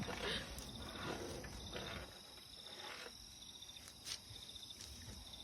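Crickets chirping in short, evenly repeated high trills, with a single sharp click about four seconds in.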